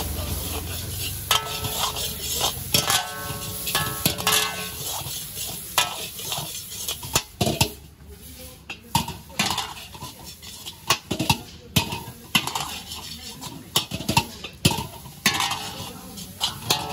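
Steel ladle clanging and scraping against a large iron wok as fried rice is stir-fried and tossed, with repeated sharp clangs over the food's sizzle.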